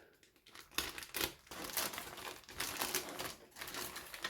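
Plastic parts bag from a model kit crinkling and rustling as it is opened and handled, in a run of irregular crackles starting about a second in.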